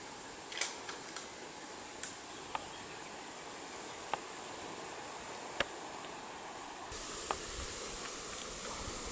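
Quiet bush ambience: a faint, steady high hiss with a few scattered small clicks. A low rumble comes in about seven seconds in.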